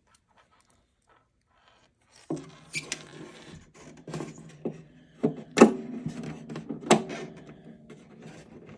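Small clicks and knocks of a harp pickup being handled: its nut and washers are adjusted, and the pickup is test-fitted into its mounting hole in the wooden body. The sounds begin about two seconds in, and the two loudest knocks fall near the middle.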